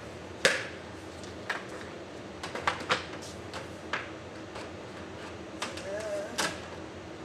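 Sharp clicks and knocks of plastic EcoStud studs being handled and fitted into the track, a loud one about half a second in and scattered lighter ones after.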